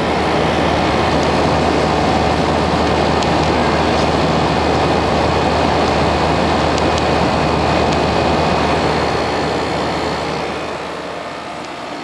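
Comfort Aire 15,100 BTU window air conditioner running with its GMCC compressor, a steady hum under a loud rush of fan air, sounding really nice: running smoothly and cooling. The sound eases slightly near the end.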